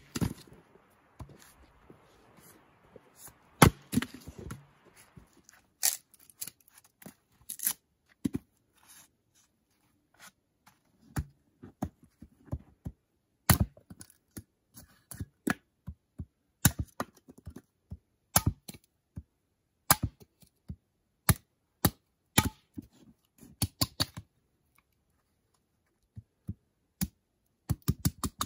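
Axe blows splitting firewood on a chopping block: sharp, separate cracks, the loudest right at the start. Further on, a quicker run of lighter strikes as thin pieces are split into kindling.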